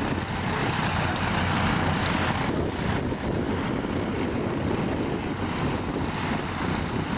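Propeller-driven aerobatic display aircraft running through its display, heard as a steady engine and propeller drone with no sharp events.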